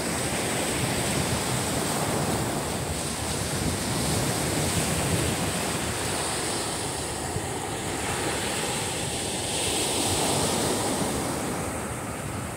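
Loud ocean surf breaking on the beach, a dense wash that swells and eases every few seconds, with wind blowing on the microphone.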